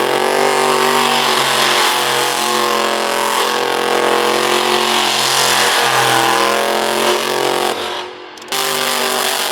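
Burnout car's engine held at high, steady revs with its rear tyres spinning, the engine note over a loud hiss; the revs dip twice and drop off near the end.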